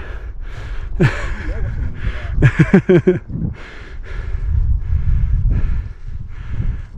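A hiker breathing hard in rhythmic, noisy breaths while climbing steeply, with a couple of short voiced grunts or words about a second in and near three seconds, over a steady low wind rumble on the microphone.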